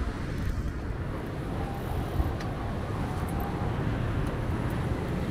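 City street traffic: a steady low rumble of passing vehicles, with a brief click about two seconds in.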